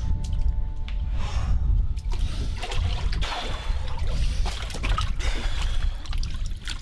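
Water sloshing and splashing in a tub as someone moves in it, over a steady low rumble.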